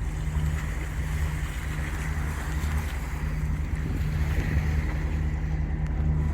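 Lagoon 46 catamaran motoring in flat calm: its inboard diesel engines drone steadily, with water hissing along the hulls.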